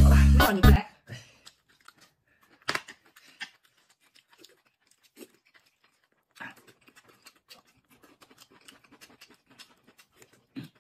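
Eating sounds of boiled dumplings: soft chewing and mouth noises with scattered small clicks of chopsticks and dishes, and a sharper click about three seconds in. Background music stops within the first second.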